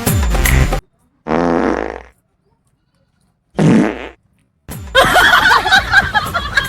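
Two fake fart sounds, each under a second long with a buzzing pitch; the second starts high and falls. They come out of dead silence after music cuts off. Near the end, people talking and music start up.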